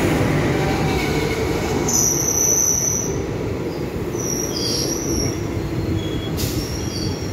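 Indian Railways express train arriving along a platform: a steady rumble of coaches rolling over the rails, with high-pitched squeals about two seconds in and again a few times later as it slows.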